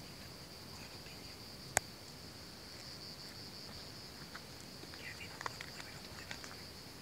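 Steady, high-pitched chirring of an insect chorus. A single sharp click about two seconds in, and a few faint ticks near the end.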